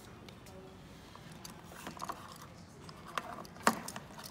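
Low room tone, then a few sharp clicks and taps near the end as a hand holding a bunch of keys handles the fuel filler cap in the open flap, with a light jingle of the keys.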